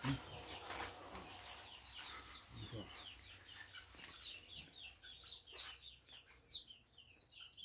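Young chickens cheeping: many short, high peeps, several a second, faint, with a soft low thump right at the start.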